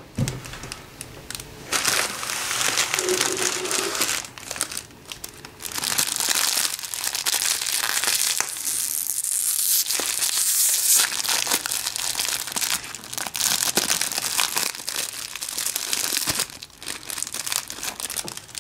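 Thin clear plastic wrapper crinkling and crackling as hands peel it open around a coconut-covered sponge cake, in irregular stretches with short pauses.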